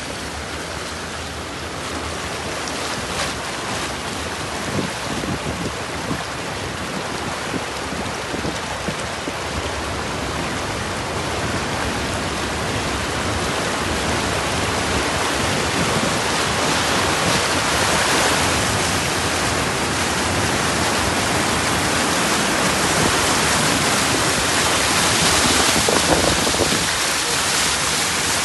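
Steady rush of muddy floodwater through a flooded street, with water sprayed up by car tyres driving through it; the noise grows gradually louder toward the end.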